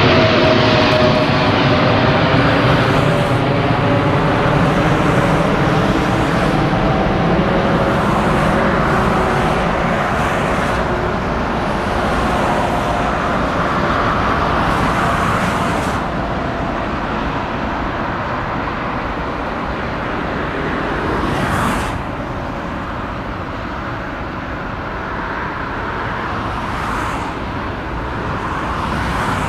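Boeing 747-8 freighter's four GEnx jet engines at takeoff power as it climbs out: a loud, steady jet roar with humming tones that fall in pitch over the first few seconds, then a slow fade as the aircraft moves away.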